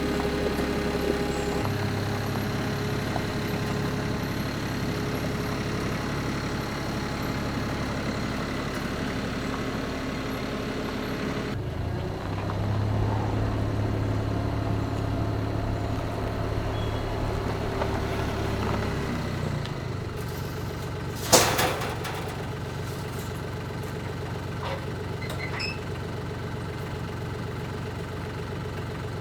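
An engine runs steadily, its pitch shifting a few times as it is worked. About two thirds of the way through there is one sharp, loud clunk.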